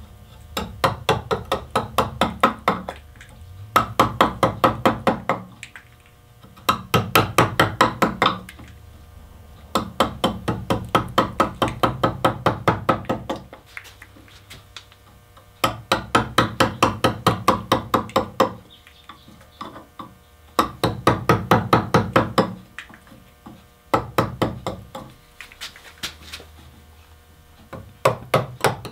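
Carving gouge being struck with a mallet in runs of quick taps, about six a second, with short pauses between runs, as it chops away the broken ear stump of a wooden rocking horse to make a flat seat for a new piece.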